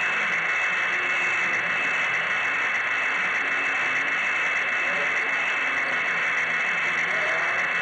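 Steady whirring hiss of a model train running along its track, picked up up close by a camera riding on the train, with a thin steady high whine.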